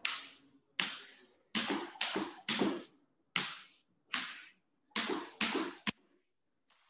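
Jump rope swishing through the air in side swings: about ten sharp whooshes at an uneven pace, roughly two a second. A short crack comes just before the sounds stop, near the end.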